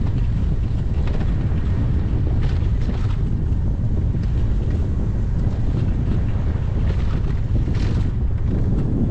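Wind buffeting the microphone of a camera on a moving bicycle, a steady loud low rumble, with a few faint brief higher sounds mixed in.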